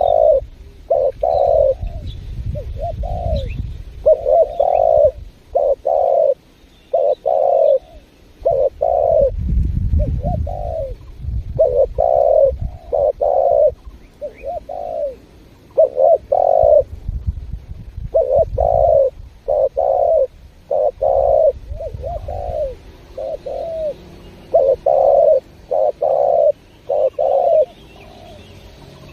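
Spotted dove (tekukur) cooing steadily in repeated phrases of short, low, throaty coos, about one to two a second. The cooing stops a little before the end. A low rumble runs underneath at times.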